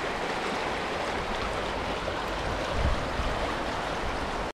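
Shallow mountain trout river running over a rocky riffle: a steady rush of water.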